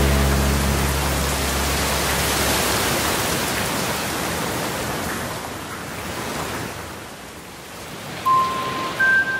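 The last chord of an acoustic guitar tune rings out and dies away under a steady rushing hiss, which fades out. Near the end, a few clear chime notes like a glockenspiel start the outro jingle.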